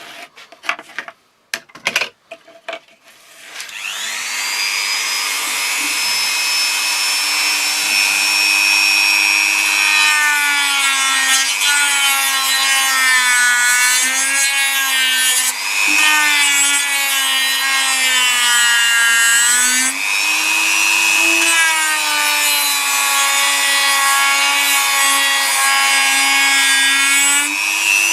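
A few handling knocks, then a power tool motor starts about three and a half seconds in and runs on as it grinds at the work, its pitch dipping and recovering again and again as it is pressed in and eased off.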